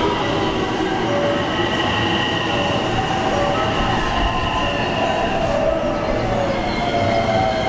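Electric commuter train running through the station platform: a steady rail rumble with high, drawn-out wheel squeal.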